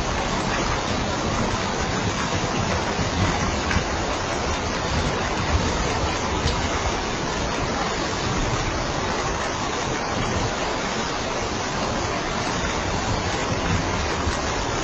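Steady, heavy rain: an even, unbroken hiss of falling water with faint scattered drop ticks.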